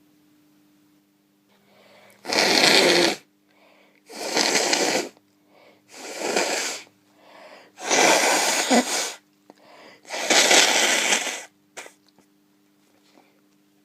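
A person with a developing cold blowing their nose hard five times, each blow about a second of rushing noise, roughly two seconds apart, with short breaths in between.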